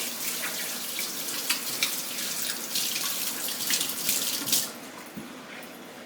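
Kitchen sink tap running while hands are washed under it, with water splashing; the water stops about four and a half seconds in.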